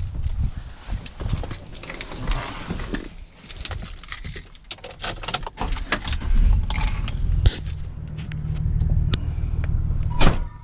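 Jangling, clanking rattles of loose metal being handled, joined about halfway through by a low steady motor hum.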